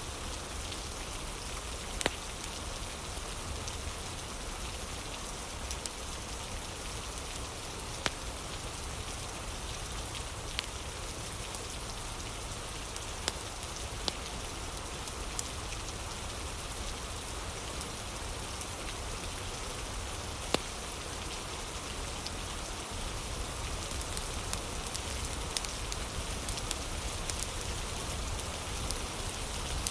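Steady rain falling, with a few sharp crackles from a wood fire now and then, coming more often near the end.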